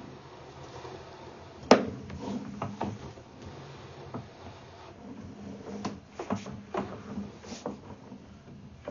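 Knocks and clatters of objects being handled: one sharp knock about two seconds in, then a scattering of lighter clicks and knocks.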